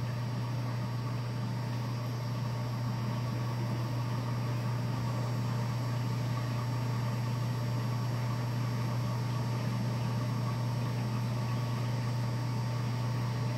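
Reef aquarium equipment running: a steady low hum under an even hiss, unchanging throughout.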